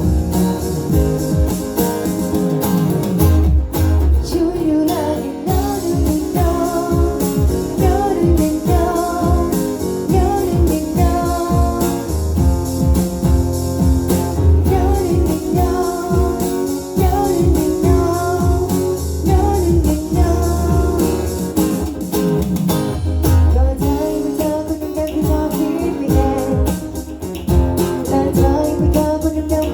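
A Thai song playing, with guitar, bass and a steady beat under a wavering melody line.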